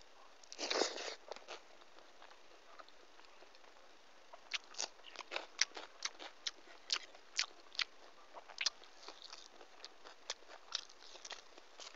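Close-miked eating by hand: a louder wet mouthful sound about half a second in as a handful of rice and dal goes into the mouth, then chewing with a run of sharp wet smacks and clicks from about four and a half seconds.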